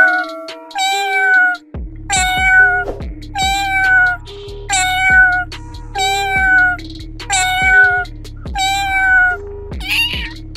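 A cat meowing again and again at an even pace, about five meows every four seconds, each meow falling slightly in pitch. Background music plays under it, with a bass line coming in about two seconds in.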